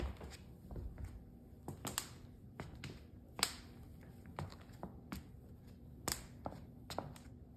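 New luxury vinyl plank flooring cracking at its tongue-and-groove joints under slow footsteps, a fault of the freshly laid floor. Sharp, irregular snaps come about once a second.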